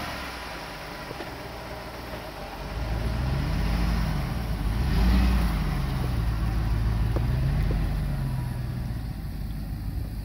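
2006 Dodge Ram pickup truck's engine running, then pulling away: its pitch rises and falls a few times as the truck accelerates off, loudest about halfway through and fading near the end as it drives off.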